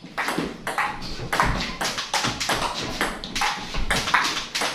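Table tennis rally: the plastic ball clicking off the paddles and bouncing on the Donic table in quick, irregular succession, about four or five knocks a second.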